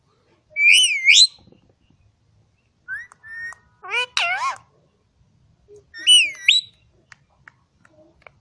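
Green ring-necked parakeet whistling: four short bursts of shrill rising-and-falling whistles. The burst near the middle is lower and more voice-like, as if mimicking speech.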